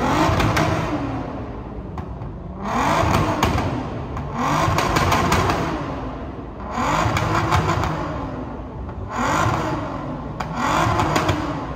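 A car engine revving again and again, its pitch rising and falling about every two seconds, each rev with a burst of hiss.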